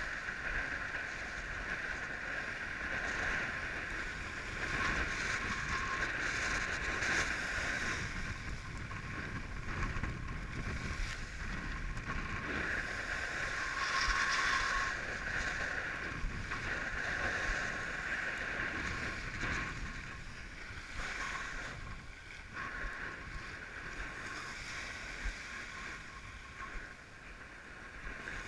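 Fanatic FreeWave 76 windsurf board skimming over chop: a continuous rush of water and spray along the hull that swells and eases as the board meets the waves.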